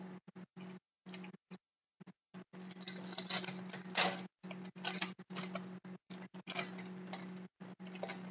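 Foil wrapper of an Upper Deck hockey card pack crinkling and tearing as it is opened by hand, densest in the middle with its sharpest crackle about four seconds in. Under it a steady low electrical hum cuts in and out again and again.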